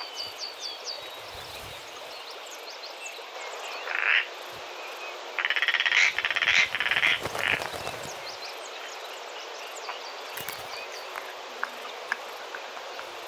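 European roller giving harsh rattling calls: a short burst about four seconds in, then a longer rapid rattle lasting about two seconds. Faint high chirps of small birds near the start.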